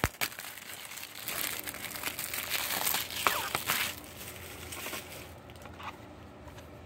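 Plastic shrink wrap crinkling and tearing as it is pulled off a DVD case, busiest in the first four seconds. After that comes quieter handling with a faint click.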